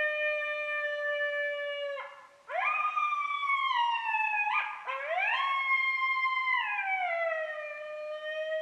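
Recorded coyote group howl, the MFK HollerBack Group Howl predator call: three long howls, the first held at a steady pitch, the second and third sliding up and then drawing slowly down, with more than one voice overlapping.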